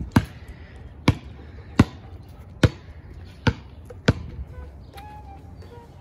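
Basketball dribbled on a concrete driveway: six sharp bounces a little under a second apart, then a weaker one near the end.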